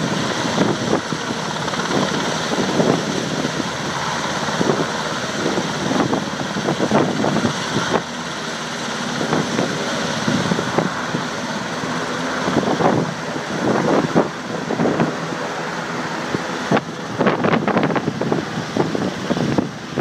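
UH-60 Black Hawk helicopter hovering and descending to land, its rotor and turbine running loudly, with wind buffeting the microphone.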